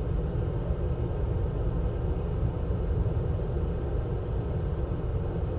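Steady rumbling hiss of moving air from microsoldering bench equipment, most of it low in pitch and unchanging throughout.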